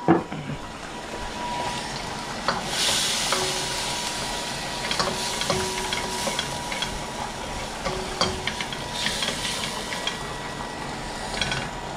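Chopped onion and garlic sizzling as they fry in a wok, with a spatula stirring and knocking against the pan. The sizzle swells about three seconds in and again near nine seconds, and there is a loud knock right at the start.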